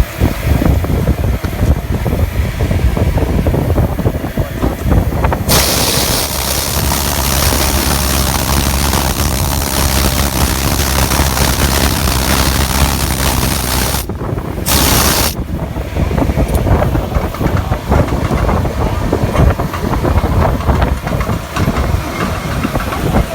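Self-shielded flux-cored wire welding: the arc strikes about five seconds in and sizzles steadily for about eight seconds over a low steady hum, stops, then strikes again briefly about a second later. Rough crackling noise fills the rest.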